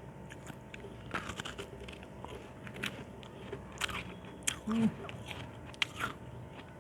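Ice chunks being bitten and crunched between the teeth, irregular crisp cracks with chewing in between.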